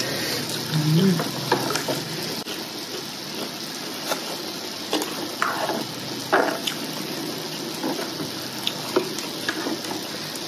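Hotpot broth simmering with a steady hiss, while chopsticks stir in the pot and click against it a number of times.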